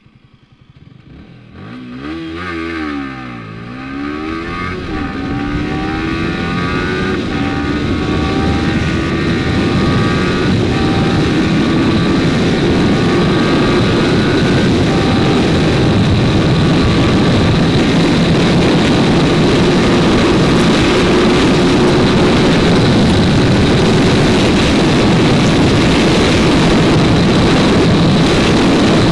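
Yamaha R15 V3's 155 cc single-cylinder engine accelerating hard through the gears. Its pitch climbs in each gear and drops at each upshift in the first few seconds. After that, wind rushing over the microphone grows louder with speed until it covers much of the engine note at high speed.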